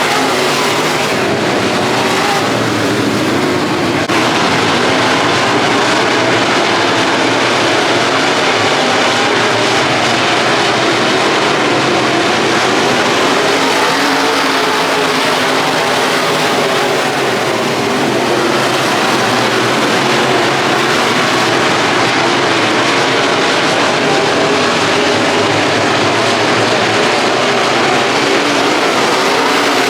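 Race car engines running steadily at speed on a dirt track.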